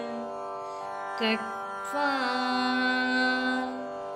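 Steady Carnatic-style drone under a chanted Sanskrit verse: a short syllable about a second in, then a single voice sings the gesture name "Khatva" and holds the note.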